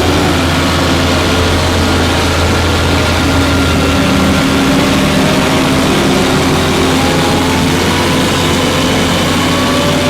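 Heavy vehicle engine running steadily under load, with a faint whine that slowly rises in pitch in the second half.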